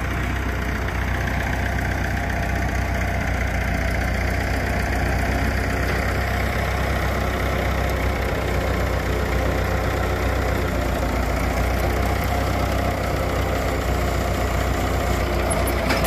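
Farm tractor's engine running steadily as its front loader handles cedar logs onto a flatbed truck.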